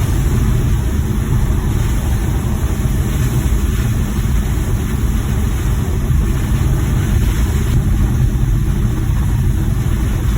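Suzuki Multicab van driving along, with a steady low drone of engine and road noise that holds even throughout.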